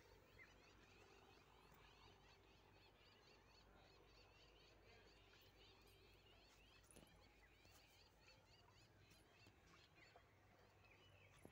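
Near silence, with faint, dense chirping of many small birds in the background.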